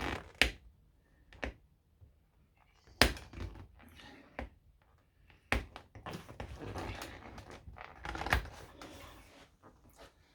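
A series of sharp knocks and clunks with some rustling between them: hands working on a car seat's headrest and its plastic clips. The loudest knock comes about three seconds in.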